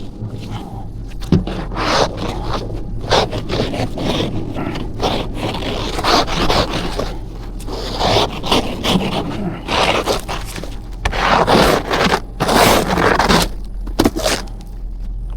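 Snow being scraped and cleared with repeated irregular strokes, the sound of digging out a snowed-in car.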